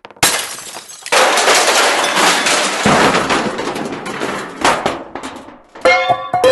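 Crash sound effect: a long, dense smash of breaking glass and tumbling debris begins about a second in and dies away over a few seconds. Scattered knocks follow, then ringing metallic clangs near the end.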